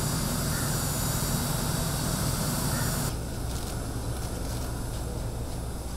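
Steady jet-turbine hiss and high whine of a parked airliner on the apron. About halfway through it cuts to a quieter low steady hum with a few faint clicks.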